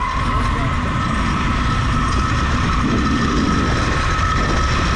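Zipline trolley running fast down the steel cable, its pulleys giving a steady whine that climbs slightly in pitch at first, over heavy wind noise rumbling on the microphone.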